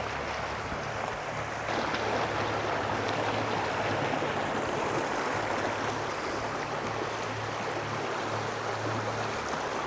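Mountain stream water running steadily over a rocky run, a continuous rushing wash that gets slightly louder about two seconds in.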